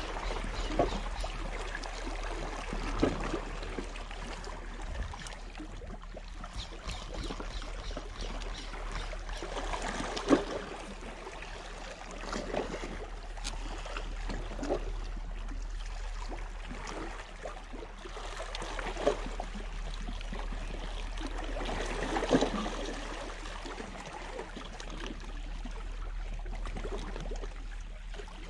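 Small waves lapping and splashing against a rock breakwater at the water's edge, with a louder splash every few seconds.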